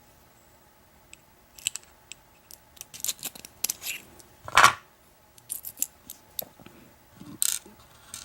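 Small metal lock parts clicking and clinking as an American 1100 padlock is taken apart by hand. There is a scatter of sharp ticks from about a second in, and one louder knock about halfway through.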